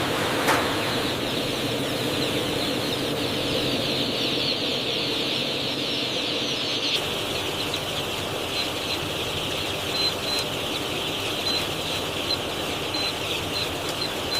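A large crowd of baby chicks peeping at once: a dense, continuous chorus of high chirps.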